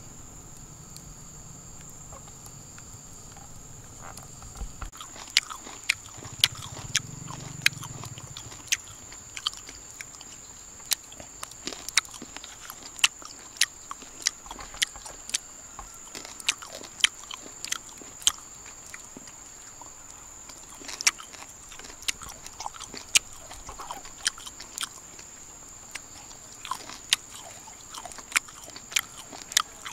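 Close-up chewing of grilled palm-trunk grubs: sharp, irregular crunches and mouth clicks that begin about five seconds in, pausing briefly near the middle.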